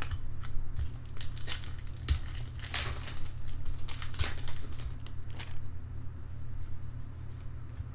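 Foil trading-card pack wrappers crinkling and tearing as packs are ripped open, in irregular bursts with a denser stretch about three seconds in.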